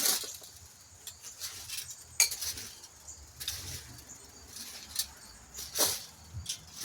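Leaf rake dragged through dry leaves and sticks in short separate strokes, scraping and rustling, with a sharp clink about two seconds in.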